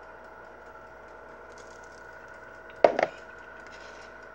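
An Old Bay seasoning tin set down on a hard table, a single sharp double clack about three seconds in, over a faint steady appliance hum.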